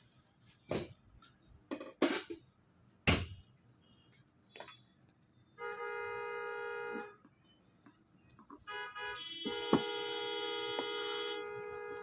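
A few sharp clicks in the first three seconds, then sustained organ-like keyboard chords of background music, held for about a second and a half and then again from near the end of the ninth second onward.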